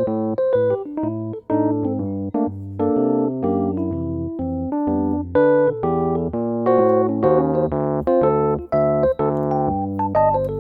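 Background music: a soft electric-piano melody over bass notes, in a steady rhythm.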